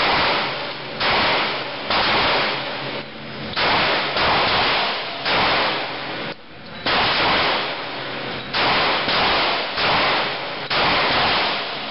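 Glock pistol with a modified trigger fired in a steady string, about a dozen shots at roughly one a second, each shot ringing on in the indoor range's echo.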